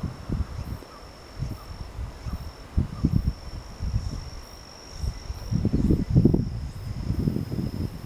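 An insect, likely a cricket, trilling on one steady high note with a few short breaks. Under it are irregular low rumbling buffets, loudest about six seconds in.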